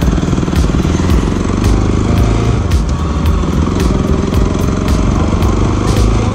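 Motorcycle engine running as the bike rides off, under background music with a steady drum beat about twice a second.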